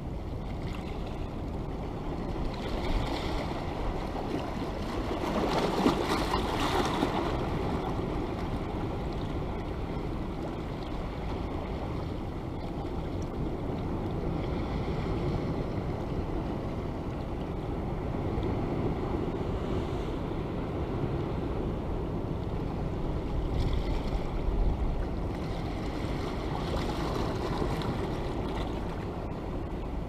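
Sea waves washing in on a rocky shore: a steady rush that swells louder about six seconds in and again near twenty-five seconds.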